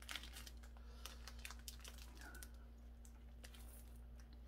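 Faint scattered clicks and light crinkling from a paper-wrapped hamburger being handled and bitten into.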